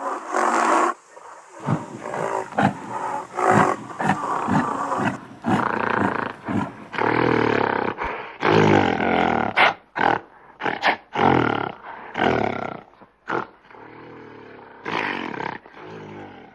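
Animal sound effects dominated by lion-like roars and growls, in a string of separate calls of varying length with short gaps between them.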